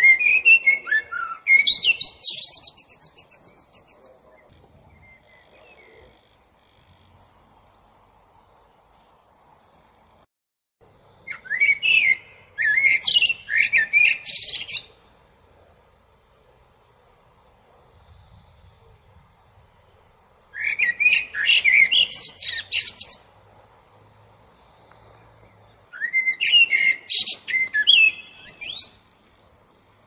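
Male common blackbird singing: four separate song phrases, each two to four seconds long, with pauses of several seconds between them. Each phrase starts on lower whistled notes and breaks into higher, rapid notes.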